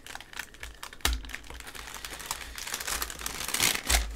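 Tissue paper crinkling and rustling as it is unfolded and lifted by hand, with a sharp tap about a second in. The crackling grows louder and busier toward the end.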